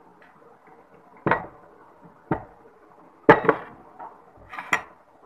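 Jars, a spoon and a steel bowl being handled on a table: four or five separate sharp knocks and clinks of dishware, about one a second.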